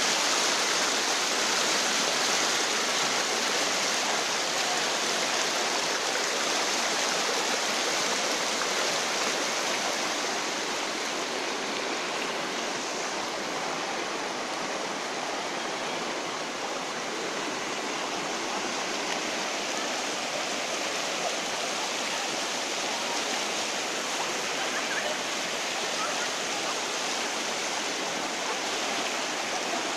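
Fast river floodwater rushing and churning over a road, a steady wash of moving water, a little louder in the first few seconds.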